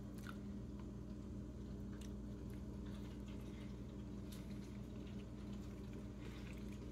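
Faint bites and chewing of a soft, custard-filled sponge cake: quiet moist mouth sounds and a few soft clicks, over a steady low hum.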